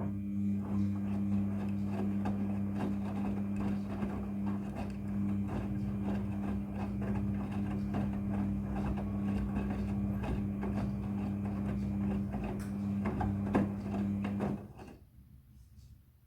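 Midea front-loading washing machine running: a steady electric hum with quick clicking and rattling over it, starting suddenly and cutting off about fourteen and a half seconds in.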